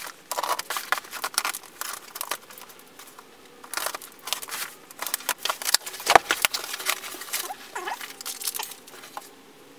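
A cardboard shipping box being opened by hand: packing tape slit and torn, flaps pulled back, and the packing inside crinkling and rustling as the contents are lifted out, in irregular bursts of crackles and sharp scrapes.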